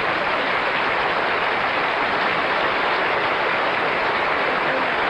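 Audience applauding: dense, steady clapping with no music.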